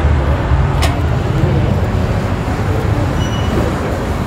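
Steady low rumbling background noise, with a single sharp click about a second in.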